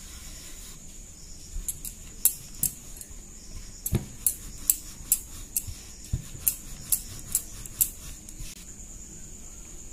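Wooden rolling pin rolling out a small round of dough on a round wooden board (chakla), with sharp clicks about twice a second as the pin is pushed back and forth and a duller knock about four seconds in.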